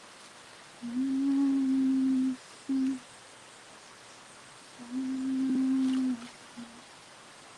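A woman humming one steady low note with closed lips, held for about a second and a half and followed by a short hum, then the same again near the end.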